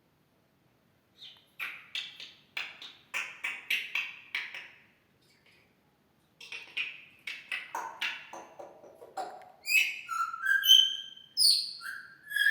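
African grey parrot vocalising: strings of short, rough, raspy sounds with a pause between them, then from about ten seconds in a run of clear whistled notes that jump from one pitch to another.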